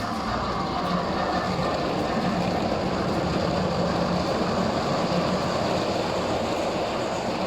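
O gauge model of a Class A4 locomotive running along layout track, with a steady, even running noise of wheels on rail.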